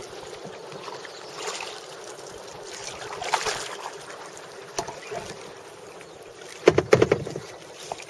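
Kayak paddles dipping and splashing in calm river water over a steady hiss, with a short cluster of sharp knocks and splashes about seven seconds in.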